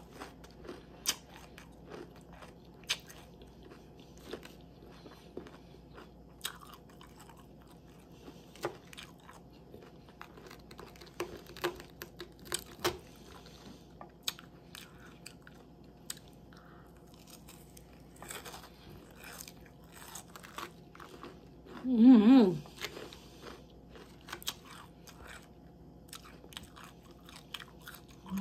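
Close-up crunchy chewing and biting of a salad with lettuce and tortilla chips, many short crackles scattered throughout. About 22 seconds in a brief vocal sound from the eater stands out as the loudest moment.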